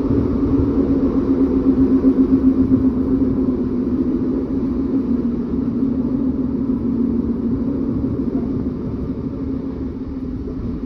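Northern Class 156 diesel multiple unit heard from inside the carriage: a steady low drone from its underfloor Cummins diesel engine and the running gear, with rumble. The pitch sinks slightly and the drone eases a little in the last few seconds.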